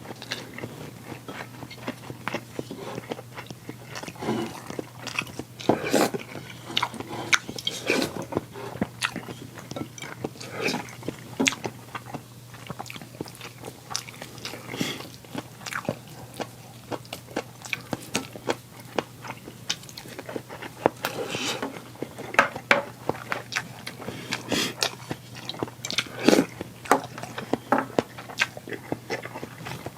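Close-miked eating sounds: irregular chewing and biting, with sharp clicks and smacks scattered throughout.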